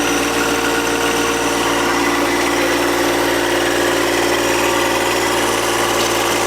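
Engine running steadily at an even speed, with no change in pitch or level.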